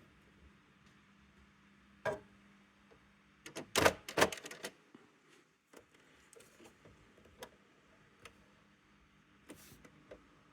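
Irregular clicks and knocks from the plastic and metal parts of a Brother AX-425 electronic typewriter being handled during disassembly. There is one click about two seconds in, a loud cluster of knocks around the middle, then scattered small ticks.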